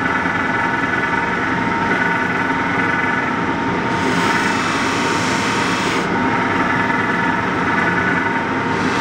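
Bench polishing machine with a cloth buffing wheel running steadily with a whine. About four seconds in, a knife blade is held to the spinning wheel for about two seconds, adding a brighter hiss of steel being polished.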